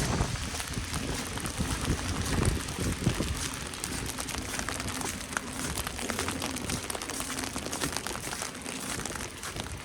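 Walking through snow: footsteps crunching, with several heavier steps in the first few seconds, over a steady fine crackle of falling wet snow.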